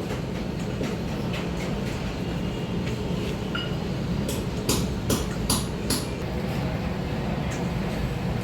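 Metal lathe running with a steady hum, with a handful of sharp metallic clicks about four to six seconds in.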